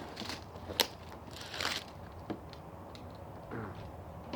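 Packaging being handled: a sharp click a little under a second in, a brief rustle of wrapping, then a smaller click.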